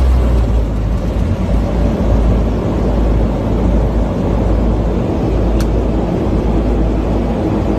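Steady loud rumble of an aircraft heard from inside the cockpit as it rolls along the runway on landing: engine noise and runway roll, heaviest in the low end. One short sharp click about two-thirds of the way through.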